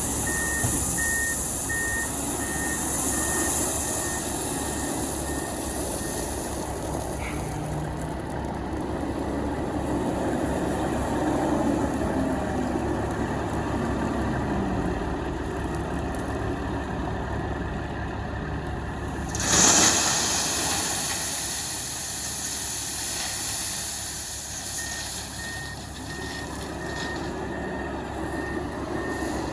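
Diesel trucks and heavy equipment running steadily, with a reverse-warning beeper giving a regular series of beeps at the start and again near the end. About two-thirds of the way through comes one short, loud hiss of air.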